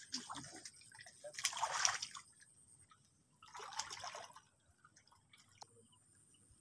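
Shallow muddy water splashing and sloshing in two short bouts, about a second and a half in and again about four seconds in, as hands dig in a canal bed and a person wades. Faint scattered drips and ticks follow.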